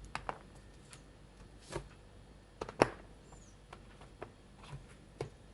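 Light scattered clicks and taps of a smartphone's removable back cover being handled and taken off, with one sharper click about three seconds in.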